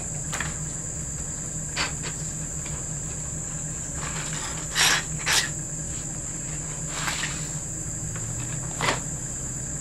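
Steady high-pitched chirring of crickets with a low hum underneath, broken by a few short knocks and clatters as the sword is handled and set into a bench vise, the loudest two close together about halfway through.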